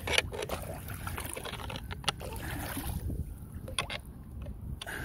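Floodwater sloshing and splashing at a leaf-clogged street storm drain as it is being cleared, with a few sharp knocks or scrapes scattered through it.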